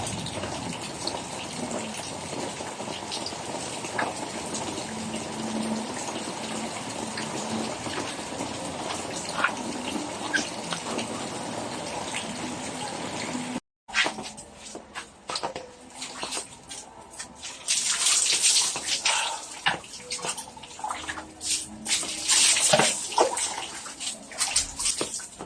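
Steady rain pouring down for about the first fourteen seconds. After a sudden break, water splashes and gushes in irregular loud bursts.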